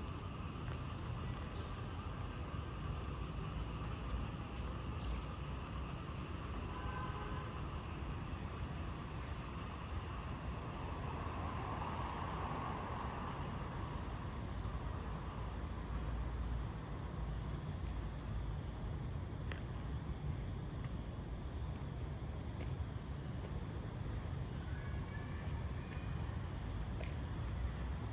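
Insects chirring in a continuous, finely pulsing high trill, over a steady low rumble.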